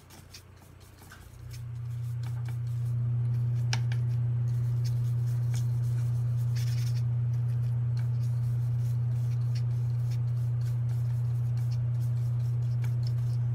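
A steady low hum fades in about a second and a half in and then holds level, the loudest sound present. Under it come faint scattered ticks and scrapes of a paintbrush working paint in a watercolour pan set.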